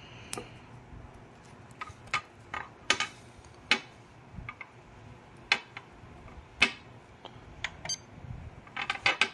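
Irregular sharp plastic clicks and taps from handling battery and servo plugs while the supply is changed over, with a quick run of clicks near the end.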